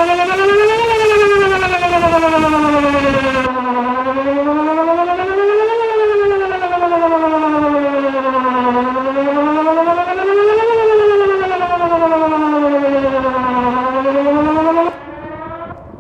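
Whelen WPS 2910 electronic outdoor warning siren sounding a wail at its middle pitch, the tone rising and falling about every five seconds, with wind buffeting the microphone. The wail cuts off suddenly about a second before the end, leaving wind noise.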